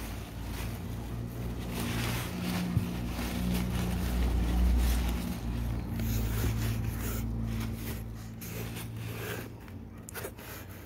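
Crumpled packing paper rustling and crackling as a hand digs through it in a cardboard box, with one sharp click about three seconds in. Under it, a low steady hum swells to its loudest about halfway and fades out near the end.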